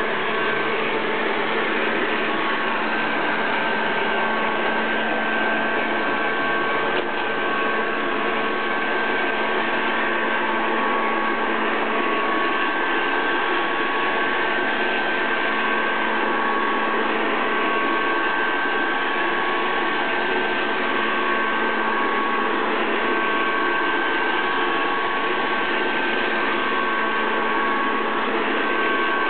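SO-ZI robot vacuum cleaner running steadily, its suction motor and brushes giving a continuous whirring hum with a high whine and a second tone that cuts in and out.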